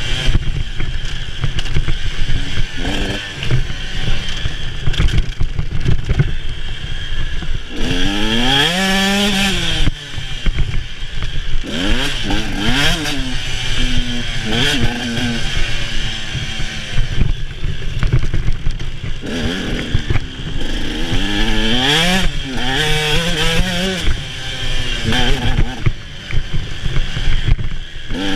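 Dirt bike engine under hard riding, its pitch climbing and dropping again and again as the throttle is opened and closed, with a constant low rumble underneath.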